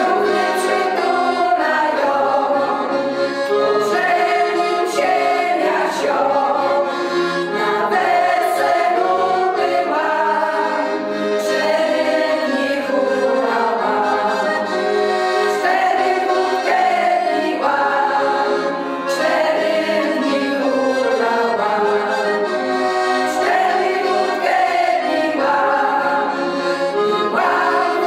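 A women's folk ensemble singing a Polish folk song together, accompanied by a piano accordion.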